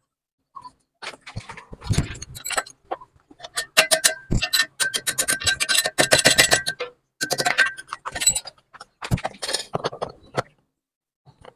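Metal hand tools and small metal parts clinking and rattling in several bursts. The loudest stretch comes in the middle: a fast run of sharp clicks with a ringing metallic edge.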